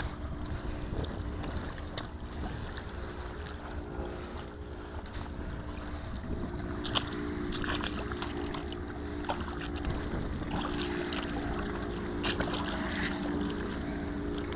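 Rubber boots splashing through shallow floodwater on a concrete boat ramp, with a few sharper splashes about halfway through and again near the end. Wind rushes on the microphone under a steady low hum.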